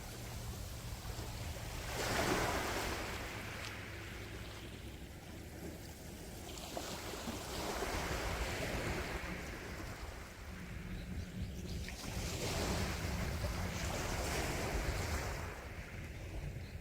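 Calm sea waves washing onto the shore, three swells rising and falling over a steady low rumble, the loudest about two seconds in.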